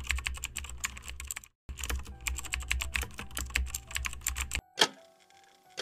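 Rapid keyboard typing clicks, a typing sound effect that goes with text being typed out on screen. The typing breaks off briefly about a second and a half in, stops about four and a half seconds in, and is followed by a couple of single key clicks.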